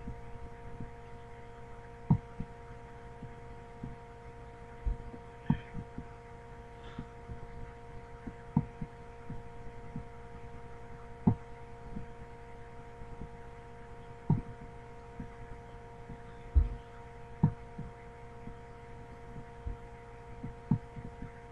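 A steady background hum made of several held tones, with scattered soft clicks and thumps every second or two.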